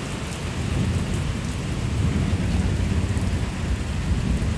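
Heavy rain falling in a thunderstorm, an even hiss with a few faint drop ticks, under a low rumble that grows louder about a second in.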